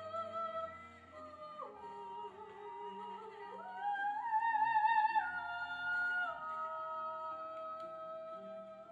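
A woman's voice singing long held notes with vibrato, in an operatic style, over a soft instrumental accompaniment. The melody dips low, then climbs to its highest and loudest note about four seconds in, and steps back down.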